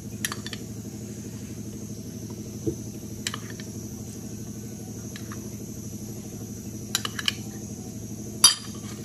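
A few light clicks and taps of a steel spoon against a steel cooking pot and a ceramic cup as food colour is dabbed onto the rice, the loudest near the end, over a steady low background hum.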